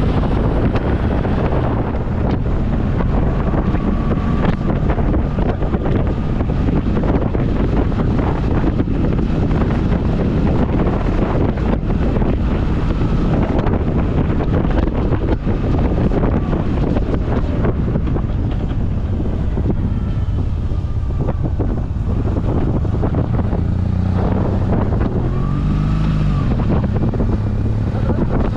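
Motorcycle engine running steadily at riding speed, with heavy wind rush buffeting the microphone.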